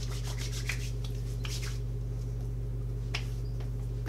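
Hands rubbing aftershave into a bearded face: several short, soft brushing strokes of palms over skin and stubble, over a steady low hum.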